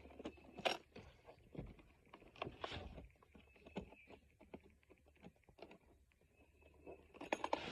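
Faint, scattered clicks, knocks and rustles of packaging and kit parts being handled during unpacking, with a brief louder clatter near the end.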